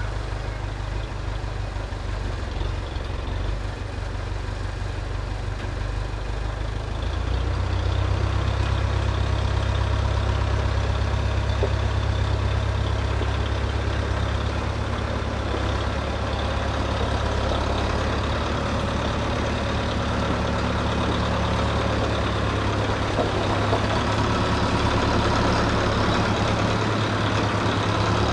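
An engine running steadily with a low hum, getting louder about seven seconds in and then holding at that level.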